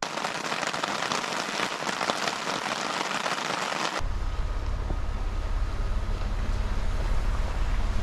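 Steady rain pattering on a tarp overhead, an even hiss. About halfway through it cuts off, and a pickup truck driving a dirt forest track takes over with a deep low rumble and wind noise.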